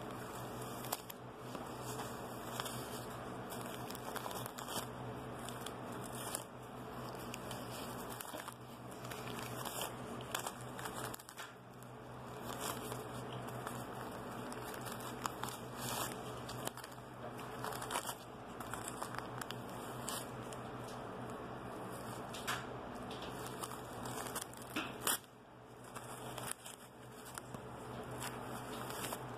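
Newspaper crinkling and tearing as a teething kitten bites and claws at it, an irregular run of sharp paper crackles and rips.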